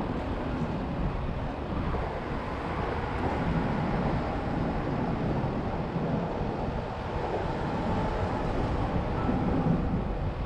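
Wind buffeting the microphone: a steady, rumbling rush with no distinct events.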